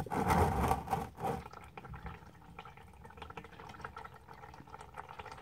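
Used engine oil pouring in a steady stream from a Porsche Cayman's sump drain hole into a plastic drain pan, louder for the first second and a half.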